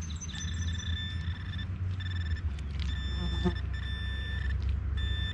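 Metal detector pinpointer sounding a high-pitched tone that switches on and off in repeated stretches as it is swept over a target in the mud, over a low steady rumble.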